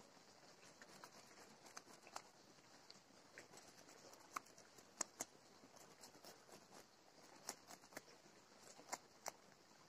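Knife blade scraping the scales off a small whole fish, heard as irregular short scratchy clicks and scrapes, the sharpest of them in the second half, over a faint steady high hiss.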